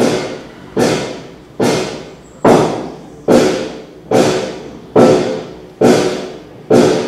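Suspense film score: a heavy, ringing percussive hit repeating at a steady pace a little slower than once a second, each one fading out before the next, beginning suddenly.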